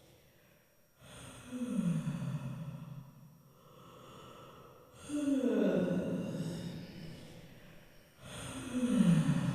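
A person yawning aloud three times, each yawn a breathy voiced sound that slides down in pitch, with quiet breaths in between.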